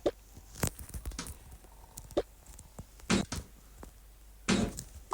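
Groceries being put into a fridge: a string of irregular knocks and thuds as items are set down on the shelves, with two longer rustling or scraping sounds about three and four and a half seconds in.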